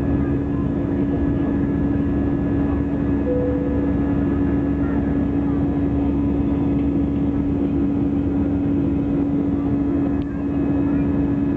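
Airliner's jet engines running steadily during takeoff: a constant low hum over a dense, even rumble, with a brief dip in level about ten seconds in.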